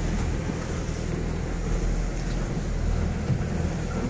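Motor boat under way at cruising speed: a steady low engine drone heard from inside the cabin, with the rush of wind and water over it.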